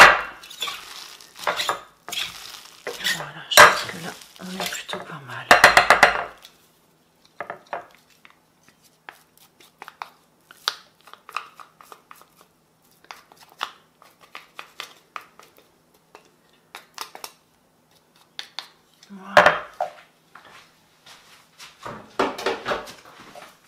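Metal potato masher clanking and scraping against a ceramic dish while mashing cooked lentils for the first six seconds or so. Then come quieter scattered clicks as the mix is worked with a wooden spoon, and a single louder knock about three-quarters of the way through.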